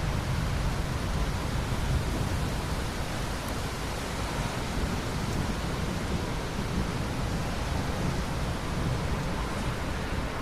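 Steady rain with a low, rolling rumble of thunder underneath, which swells a little at the start.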